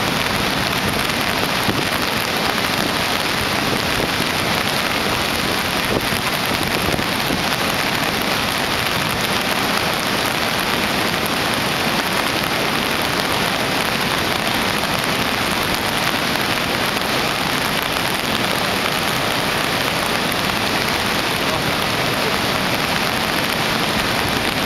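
A mountain river in flood, its muddy torrent rushing in a steady, unbroken roar.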